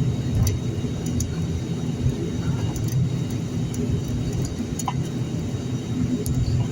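Steady low rumble inside an airliner's cabin as the aircraft taxis after landing, with a few faint clicks.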